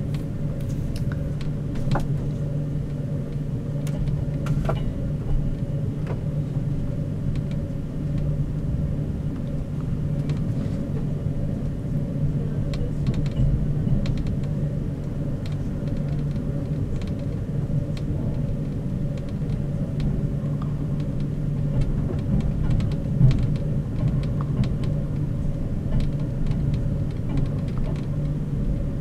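Steady low rumble and hum inside a moving passenger train carriage, with scattered faint clicks.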